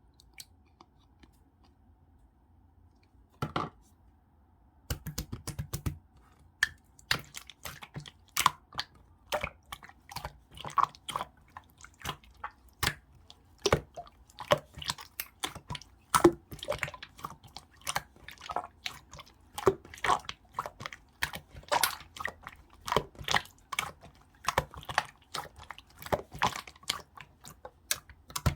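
Clear slime being squished and stretched by hand, giving sharp, wet clicks and pops several times a second. It is quiet at first, apart from one short squish about three and a half seconds in, and the clicking starts around five seconds in.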